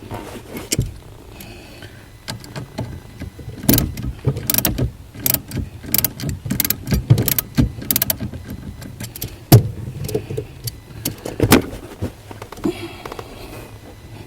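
A run of irregular sharp metallic clicks and knocks, typical of hand tools and loose parts being worked under a car, with one louder knock about halfway through.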